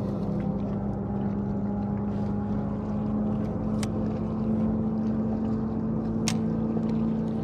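A boat's motor running steadily, a continuous hum whose pitch creeps slightly upward, with two sharp clicks about four and six seconds in.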